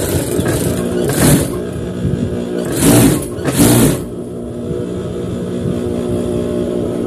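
Steady hum of a sewing machine's motor running while it is not stitching, with three short bursts of fabric rustling as cloth is folded and handled, about a second in and twice around the three-second mark.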